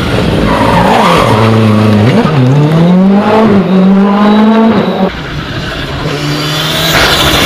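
Rally car engine running hard close by, its pitch dropping and climbing again twice early on with gear changes, then rising steadily until the throttle is cut sharply about five seconds in. A lower engine note follows and grows louder again near the end.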